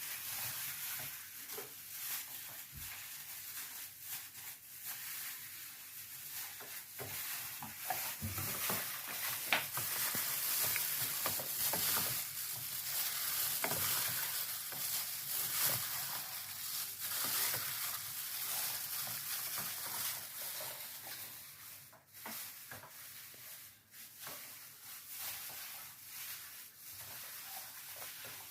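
Hands massaging raw chicken pieces with salt and pepper: wet squelching and rubbing of the meat, heard as a steady crackly hiss full of small clicks, a little louder in the middle.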